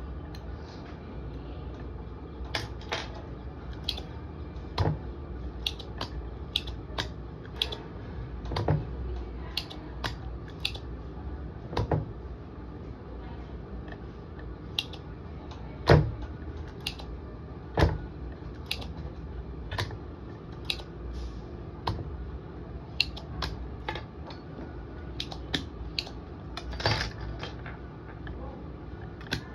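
Irregular sharp clicks and taps of desoldering work on a charger circuit board: a spring-loaded solder sucker snapping and tools tapping the board, two of the snaps louder than the rest, over a steady low hum.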